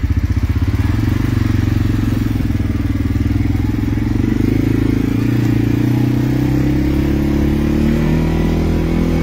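ATV engine running, with a quick pulsing beat at first, then a steadier note that climbs a little as the quad picks up speed.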